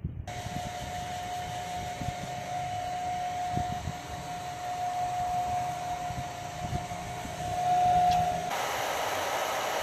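Handheld hair dryer switching on just after the start and blowing steadily, with a steady whine over the rush of air. It is loudest around eight seconds in, then the whine drops out and the airflow sound changes.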